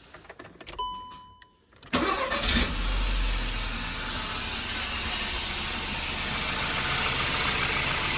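A short beep, then about two seconds in the Seat Ibiza's 1.2 TSI turbocharged four-cylinder petrol engine cranks briefly, catches and settles into a steady idle. It runs smoothly and sounds very nice on its newly replaced timing chain.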